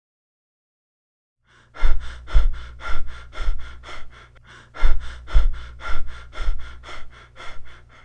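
Biot's breathing: a pause with no breathing for nearly two seconds, then a run of rapid, regular breaths, about two a second. This is the apnea-then-rapid-breathing pattern of a brain insult such as a stroke or encephalitis.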